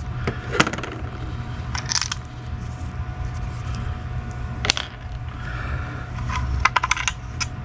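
Small metal parts being handled during disassembly: scattered light clicks and clinks, with a quick run of clicks near the end, over a steady low hum.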